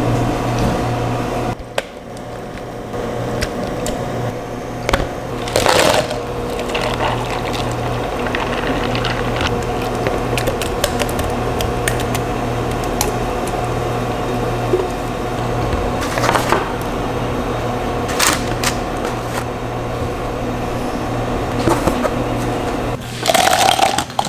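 Bubble-tea drink-making at a café counter over a steady machine hum: thick drink poured into a plastic cup, with scattered knocks and clatter of cups, shaker and ice. The loudest knocks and clatter come a few seconds in, twice in the middle and again near the end.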